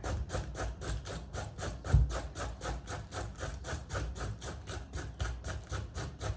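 A kitchen knife cutting cabbage on a wooden board in quick, even strokes, about five a second, with a dull thump about two seconds in.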